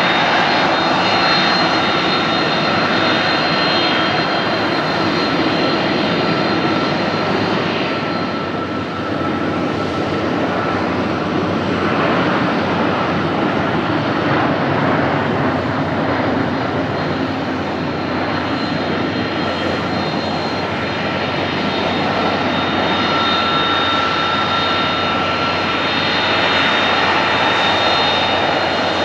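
Airbus A310's turbofan engines running at low taxi thrust: a steady jet rush with high whining tones held at an even pitch.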